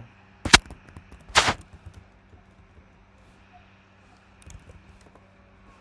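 Computer keyboard keys pressed hard, heard as two loud, sharp clacks about a second apart near the start, then a few fainter key clicks.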